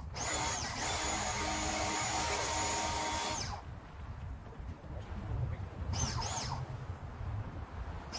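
Electric pressure washer motor running with a steady high whine over the hiss of a foam cannon spraying; it stops about three and a half seconds in, then starts up twice briefly a little later as the trigger is squeezed again.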